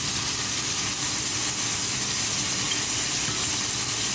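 Anchovies, shallots, garlic, chili and tomato sizzling steadily in oil in a frying pan, with a low steady hum underneath.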